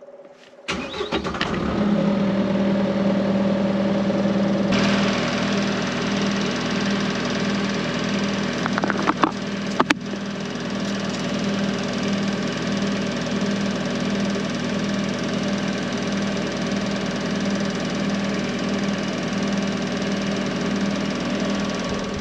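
Remote-control stump grinder's engine starting about a second in and settling into a steady run, with a few sharp clicks near the middle.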